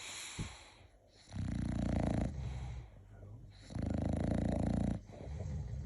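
English bulldog snoring: two loud, rough snores, each about a second long and some two seconds apart, with quieter breaths between them.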